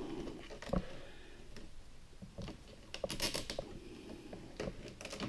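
Hands working on wiring: a few light clicks and a short burst of crisp plastic crackling about three seconds in.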